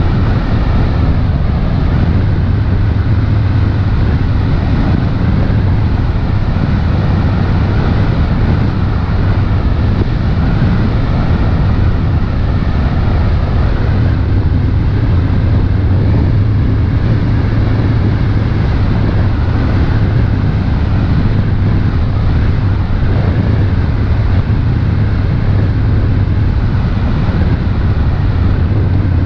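A passenger launch's engines running steadily at cruising speed: a constant low drone with the rush of wind and water over it.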